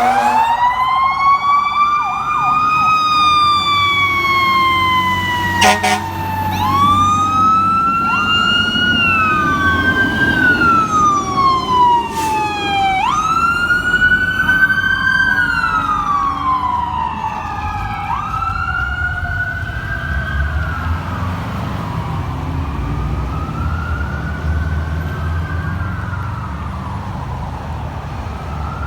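Fire apparatus sirens wailing, two or more overlapping, each sweeping up and then gliding down every few seconds, over the low rumble of the trucks' engines. A sharp click sounds about six seconds in, and the sirens grow fainter toward the end.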